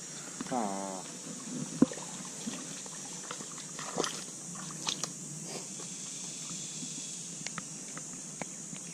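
Sharp small clicks and handling noise from unhooking a bass caught on a soft-plastic worm and handling the rig, the loudest click about two seconds in, over a steady high insect drone. A short falling voice-like sound comes about half a second in.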